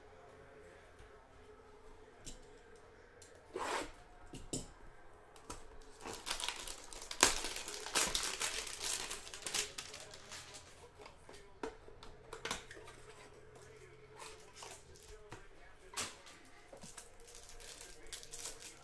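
A cardboard trading-card hanger box being handled and opened, and the cellophane wrapper around the card stack crinkled and torn. The sounds are scattered rustles and clicks, busiest for a few seconds around the middle, with one sharp snap about seven seconds in.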